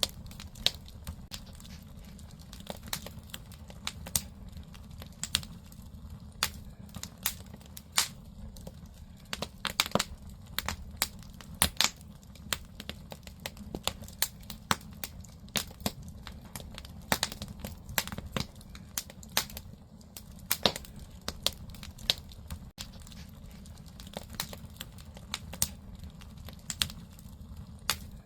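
Firewood burning in a traditional Korean agungi, the wood-fired clay firebox of an ondol-heated house: sharp, irregular crackles and pops, several a second, over a steady low rumble.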